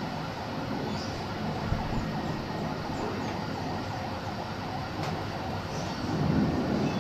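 Airbus A321-200's jet engines heard from the ground as it flies over on approach, a steady rushing roar that grows louder about six seconds in.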